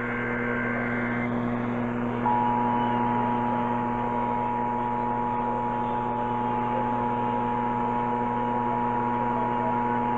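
The end of an Emergency Alert System SAME header data burst, then about two seconds in the two-tone EAS attention signal starts and holds steady, marking the start of the alert. A steady electrical hum runs under it in the radio reception.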